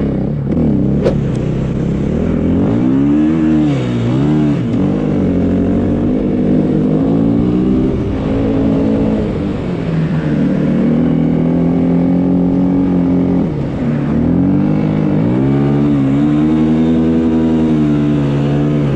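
Snowbike engine, a dirt bike engine driving a snow track, running hard under throttle. The revs fall and climb again several times, hold steady for a few seconds midway, then drop and rise once more.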